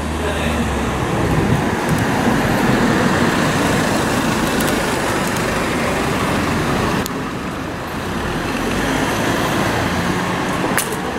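Street traffic: a steady rush of passing cars and other vehicles, easing briefly about seven seconds in, with a single sharp click near the end.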